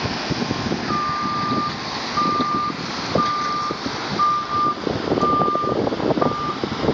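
Reversing alarm of a construction vehicle backing up, six steady beeps at one pitch, about one a second, over the constant rumble of the construction site.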